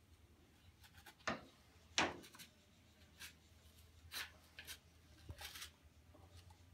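A few short, scratchy pen strokes marking a plastic jawset against a foam boar mannequin, mixed with light rubbing as it is handled. The loudest stroke comes about two seconds in.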